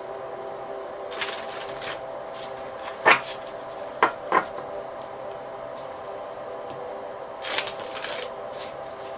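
Tarot cards being handled: two stretches of shuffling or rubbing, and a few sharp taps around the middle as cards are laid down. A faint steady hum runs underneath.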